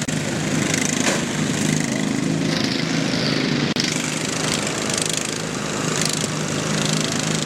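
Riding lawn mower engines running steadily in a mower demolition derby, with a couple of sharp knocks about a second in and near six seconds.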